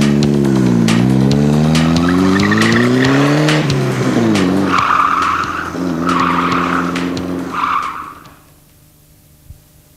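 Ford Escort RS Cosworth's engine revving, its pitch climbing and then falling. After about five seconds its tyres squeal in three short bursts as the car is driven hard through a turn. The sound fades away about two seconds before the end.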